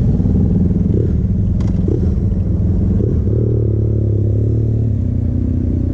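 Suzuki V-Strom 650XT's V-twin engine running at low speed as the bike moves off, its pitch rising in the second half as it accelerates. A single click about a second and a half in.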